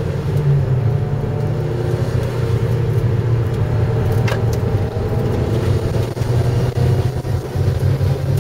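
Car engine running steadily under way at speed, heard from inside the cabin along with road noise. A brief click about four seconds in.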